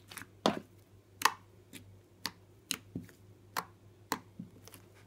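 Glossy black slime being squeezed and kneaded by hand, giving a series of sharp clicks and pops, roughly two a second.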